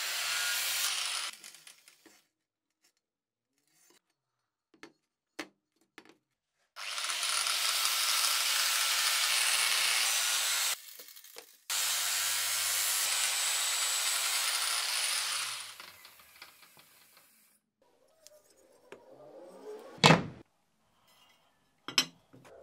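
Power tool working metal in two steady runs of about four seconds each, with scattered clicks between them and one sharp knock near the end.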